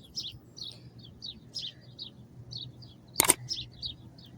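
Small birds chirping rapidly and repeatedly, with one sharp metallic clank that rings briefly about three seconds in.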